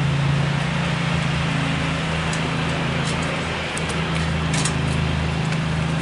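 Steady electric machine hum over a constant rush of air, with a few faint clicks near the middle.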